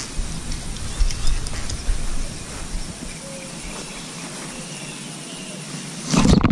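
Wind buffeting the microphone as a low rumble that eases off about halfway through, then a short, loud burst of noise near the end.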